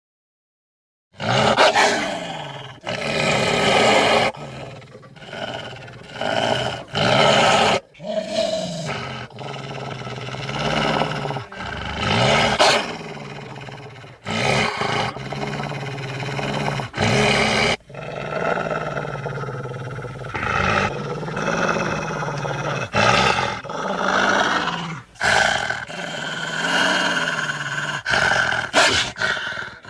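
A run of creature roars and growls, pitched and animal-like, played as separate clips a few seconds long with abrupt cuts between them.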